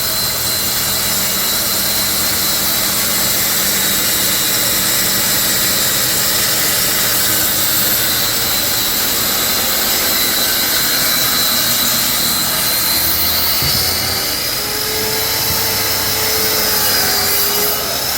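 A woodworking power tool runs steadily and loudly, with a constant high whine over a dense whirring noise. A lower tone wavers near the end.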